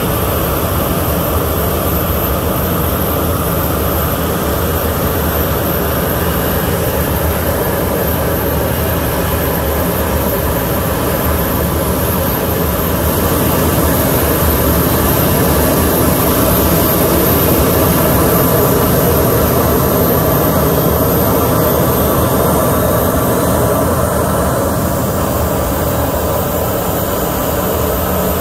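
Boeing 737 airliner's jet engines running at idle on the ramp: a steady rumble with a high whine on top, swelling a little louder in the middle.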